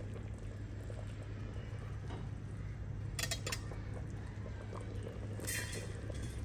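Steady low hum with two brief splashes, about three and five and a half seconds in, as tied bundles of stuffed grape leaves are dropped into a pot of simmering tomato broth.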